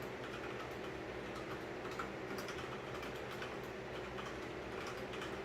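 Typing on a Corsair K70 RGB mechanical keyboard: scattered, irregular key clicks over a steady low hum.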